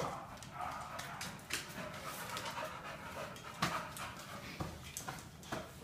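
A dog panting, with a few sharp clicks and knocks in between, the loudest a little over halfway through.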